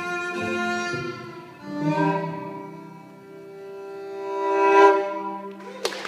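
Live bowed strings led by a violin hold the song's last sustained chords. One chord swells to a peak about three seconds in and then fades. Right at the end a burst of clatter breaks in as applause begins.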